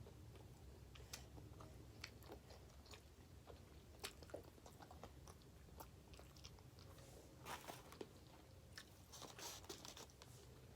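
Faint chewing and biting of pizza: scattered soft mouth clicks and crunches, with a couple of louder crunchy bites about seven and a half and nine and a half seconds in.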